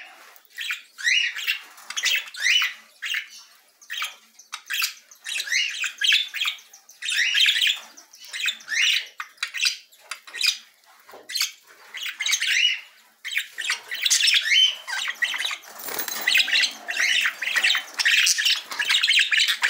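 A small flock of caged budgerigars chirping and chattering, with many short overlapping calls. The calls come close together and almost without pause in the second half.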